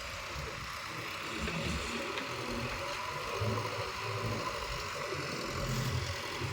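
A heavy machine's diesel engine running at low revs, an uneven low rumble under a steady hiss.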